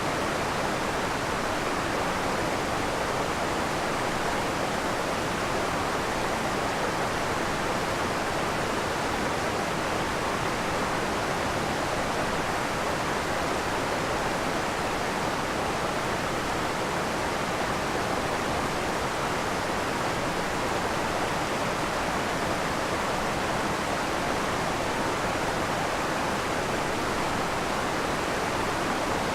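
Creek waterfall pouring in a steady, even rush of water that never changes or breaks.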